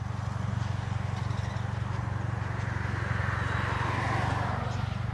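Engine running with a steady, finely pulsing low rumble, and a broad rushing noise that swells about three to four seconds in.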